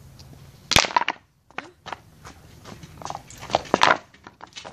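Kick scooter's small wheels rolling and clattering over rough concrete, with knocks and rattles that grow louder near the end. A single sharp clack about a second in.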